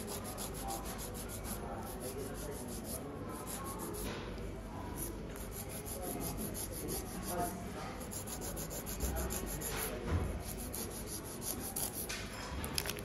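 A nail file rubbing across fingernails in rapid, repeated back-and-forth strokes, with a few short pauses.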